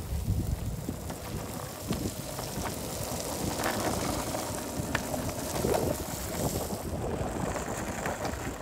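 Longboard wheels rolling over asphalt in a steady rumble, with wind on the microphone and a few sharp clicks.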